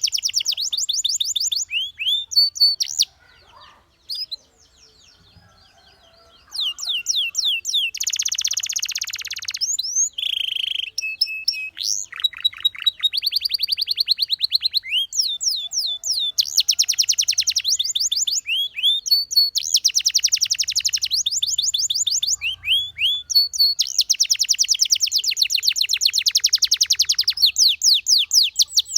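Domestic canary singing: fast, high trills of rapidly repeated notes, each sweeping downward, strung into long rolling phrases. The song breaks off for about three seconds near the start, then runs on without pause.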